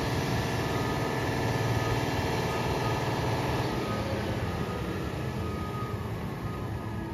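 Peterbilt 520 rear-loader garbage truck's engine running as it pulls away, fading after about four seconds.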